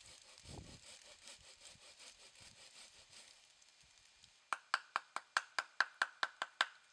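A hand saw cutting wood. First come light, even strokes, then a run of about a dozen quick, sharp strokes in the second half.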